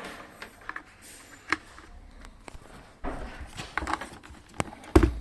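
JBL Xtreme Bluetooth speaker knocking in its drivers: irregular clicks and knocks, denser about three seconds in, with a heavy low thump near the end. The knocking is the speaker's fault.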